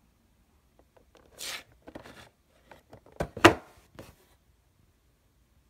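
A cardboard collectible figure box being handled on a wooden table: a short scrape about a second and a half in, a few light taps and clicks, then a sharp knock about three and a half seconds in as the box is turned over and set down.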